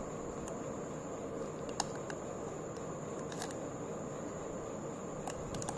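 Steady background hiss with a faint, thin high whine, and a few faint light clicks and taps from a bagged paper card being handled against a glass jar of water.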